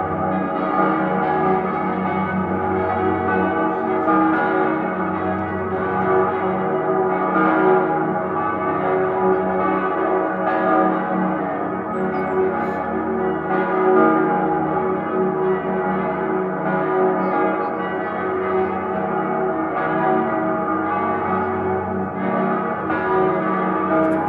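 Salzburg Cathedral's bells ringing in full peal: several swinging bells sounding together in a dense, continuous overlap of strokes.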